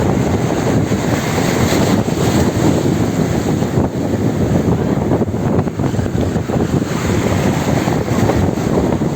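Steady loud rush of wind buffeting the microphone, with sea noise underneath.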